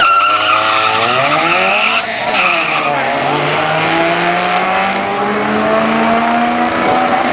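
Honda Civic hatchback launching hard off the drag-strip start line: the tyres squeal in wheelspin for about two seconds while the engine revs climb, the pitch drops at a gear change about two seconds in, then rises slowly again as the car pulls away.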